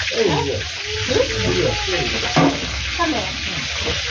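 Food sizzling in hot cooking oil, a steady hiss, with a single knock about two and a half seconds in.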